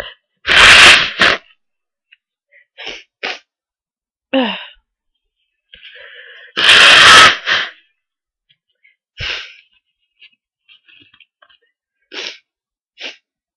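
Two loud, explosive human sneezes, one about half a second in and one about six and a half seconds in, each with a quick second burst right after. A few short, softer sounds fall between them.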